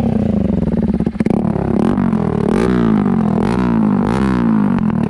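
Bajaj Pulsar NS200's single-cylinder engine running loud through an aftermarket exhaust piece fitted in place of the stock silencer. It is revved up and down a few times in the middle.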